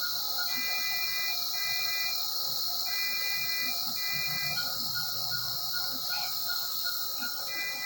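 Hospital monitoring equipment: a steady hiss of air or oxygen flow, with an electronic alarm sounding in pairs of held beeps that repeat every few seconds. A faster run of short beeps comes and goes.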